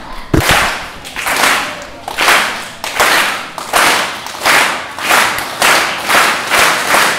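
Rhythmic handclaps with reverb opening a music track, about one every three-quarters of a second, with a low thump near the start.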